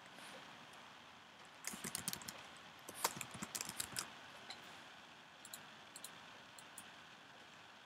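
Typing on a computer keyboard, faint: a quick run of key clicks between about two and four seconds in, then a few scattered clicks.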